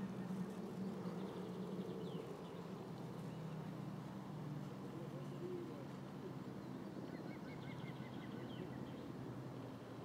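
Faint outdoor ambience: a steady low rumble, with a small bird's short falling chirp about two seconds in and a quick run of high chirps about seven seconds in.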